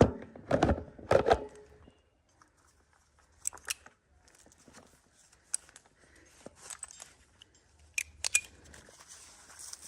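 Scattered sharp clicks and metallic clinks, with a cluster of heavier knocks in the first second and a half and a few single clicks after that.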